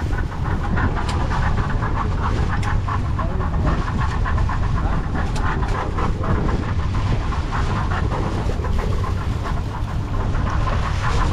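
Steady low rumble aboard a fishing boat at sea, with a few sharp knocks.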